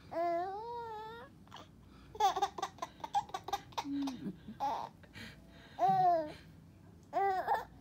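Baby's high-pitched excited squeals and giggles: a long squeal at the start, a run of quick chopped laughs about two seconds in, and more short squeals near the end.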